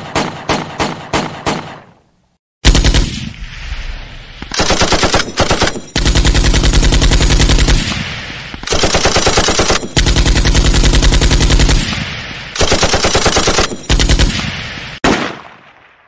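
Gunfire: a string of single shots about three a second, then after a short gap long bursts of rapid automatic fire with brief breaks, ending in one last shot whose echo fades out.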